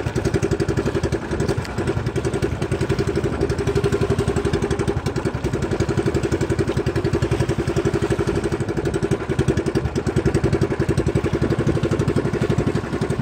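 Engine of a motorized outrigger fishing boat running steadily under way while trolling, a fast, even pulse with no change in speed.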